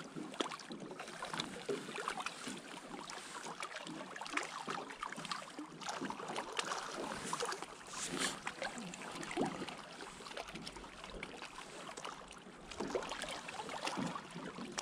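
Lake water lapping, with many small irregular splashes and ticks.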